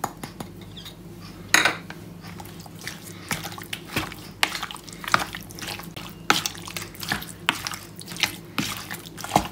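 A spatula stirring raw chicken pieces with wet spice paste and lemon juice in a plastic bowl: irregular wet squelches and taps against the bowl, one or two a second, over a faint steady low hum.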